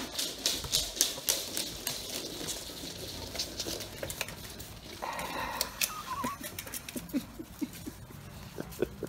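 Many Rottweiler puppies' paws pattering, and their claws clicking, on a hard floor as the litter runs, with a short noisy patch about five seconds in and a brief high squeak just after it.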